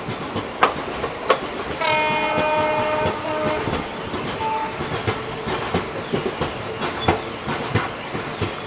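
Train wheels clattering over rail joints, with sharp clicks throughout. A train horn blows one long note about two seconds in, lasting about a second and a half, with a short extra blast at its end.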